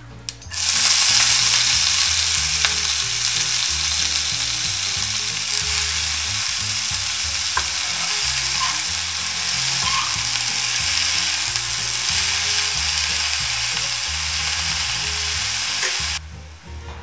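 Fresh chopped spinach hitting hot oil in a frying pan. It sizzles loudly at once, about half a second in, and goes on frying steadily, then cuts off sharply near the end.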